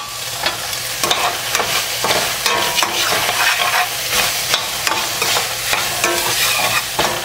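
A slotted spoon stirring and scraping mutton liver masala around a stainless steel pan, with frequent clicks and scrapes over a steady sizzle of the simmering masala.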